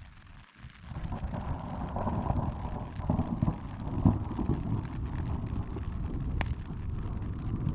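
Thunderstorm at night: a low, continuous rumble with wind buffeting the microphone, starting abruptly about a second in. A single sharp click comes near the end.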